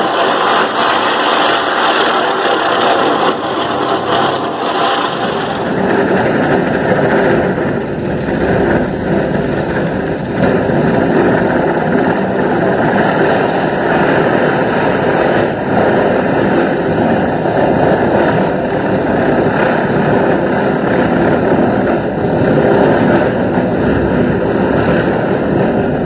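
Chakri, a ground-spinner firecracker, spinning on a thali: a loud, steady hissing rush of burning powder and spraying sparks.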